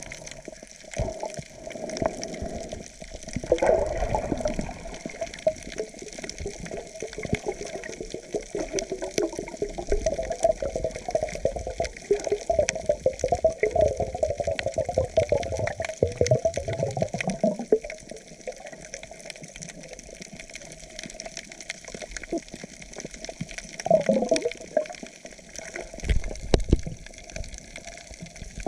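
Water heard through a submerged camera: a muffled, wavering churning and bubbling, with many small clicks throughout. It swells at intervals, most strongly over the middle stretch and again briefly near the end.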